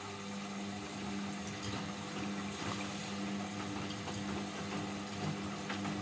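Indesit front-loading washing machine's drain pump switching on and humming steadily as water runs through it.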